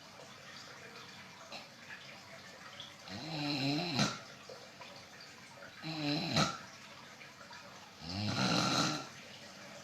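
Snoring in deep sleep: three loud snores about two and a half seconds apart, the first two each ending in a sharp click.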